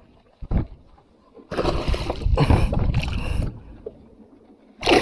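A dull knock against a fishing kayak about half a second in, then about two seconds of splashing and rustling water as a hooked fish is brought alongside the kayak.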